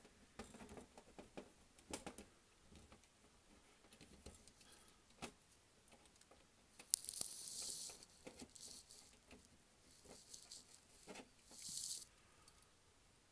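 Small clicks and rattles of fingers and a small tool handling the gears and chassis of a Fleischmann H0 model locomotive, with two short hissing scrapes about seven seconds in and near the end.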